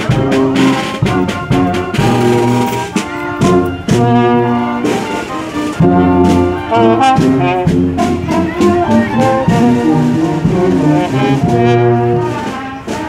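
Marching brass band playing a tune, with sousaphones carrying the low notes under the melody.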